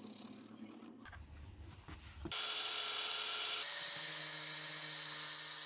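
Cordless angle grinder started a little over two seconds in, running with a steady high whine and hiss; about a second later its tone changes as the spinning disc cuts into plywood.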